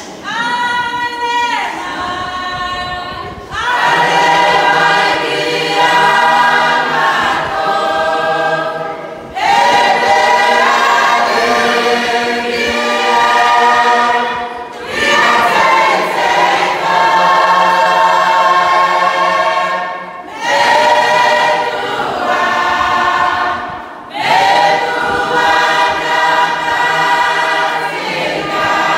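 A church congregation of Cook Islanders singing a hymn together, unaccompanied. The singing is loud and comes in phrases of about five seconds, with short breaks between them.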